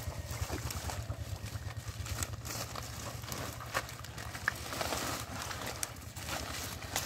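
Hands tearing up matted water hyacinth and mud from shallow water: wet rustling, crackling and small splashes, over a steady low rumble.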